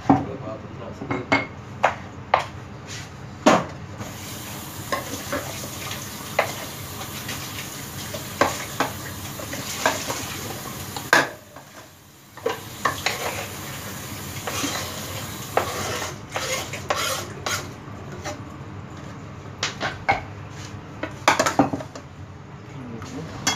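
Kitchen knife cutting tomatoes on a plastic cutting board: irregular knocks of the blade on the board. Later the tomato pieces are scraped off the board onto a plate and the board is shifted on the counter.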